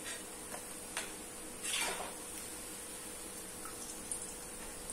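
Pakoras frying in hot oil in an iron kadhai, a steady faint sizzle, with a few light clicks and scrapes of a perforated steel skimmer against the pan; the loudest scrape comes about two seconds in.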